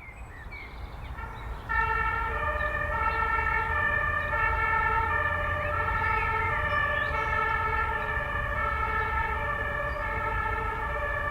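Two-tone emergency vehicle siren (German Martinshorn) switching back and forth between two pitches. It comes in loudly about two seconds in over a low, steady rumble.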